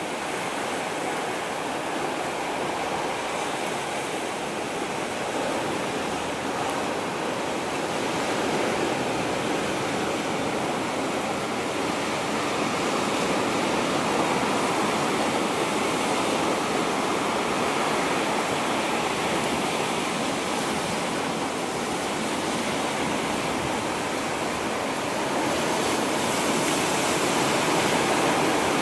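Steady rushing wash of ocean surf, swelling a little louder now and then.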